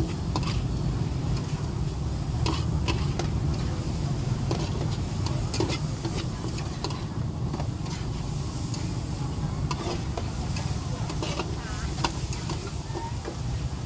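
Metal spatula scraping and clanking against a large wok during stir-frying, with the food sizzling. Irregular sharp scrapes and taps over a steady low rumble.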